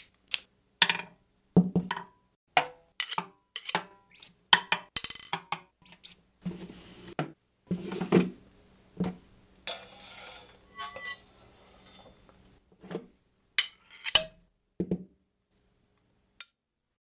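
Drums and percussion played as sound effects rather than a beat: a string of separate sharp hits, taps and clinks, with a couple of longer hissing stretches near the middle, imitating the sounds of a toy being repaired.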